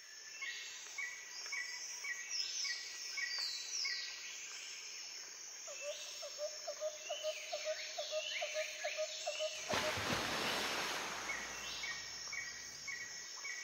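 Many birds chirping and calling together: quick high descending whistles and repeated short chirps throughout, with a run of lower, rapid pulsed calls in the middle. About ten seconds in, a loud rush of noise lasts a second or two.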